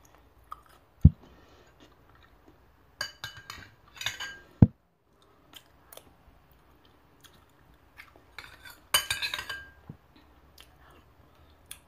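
Metal spoon clinking and scraping against a plate in a few short bursts, with two sharp thumps: one about a second in and another a few seconds later.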